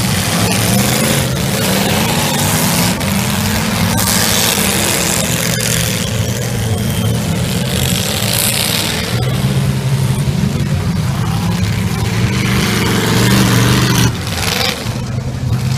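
Demolition derby cars' V8 engines running and revving together, loud and continuous, with the pitch rising and falling as the drivers throttle up and back off.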